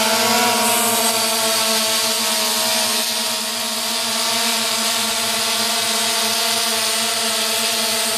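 DJI Phantom v1 quadcopter flying close overhead, fully loaded: its four motors and propellers give a steady buzzing hum with a hiss of rushing air.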